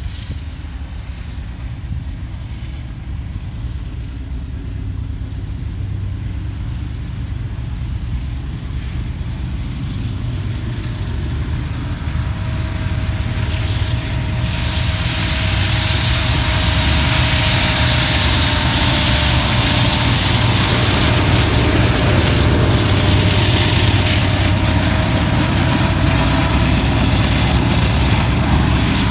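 Diesel-hauled train approaching and passing close by. A low engine rumble builds steadily, then about halfway through a loud hiss of steel wheels on rail comes in as the train reaches the spot. Two steady high-pitched tones from the wheels on the rail run over it.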